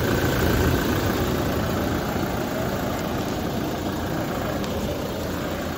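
Toyota Fortuner's 2.8-litre four-cylinder diesel engine idling steadily, heard close up with the bonnet open.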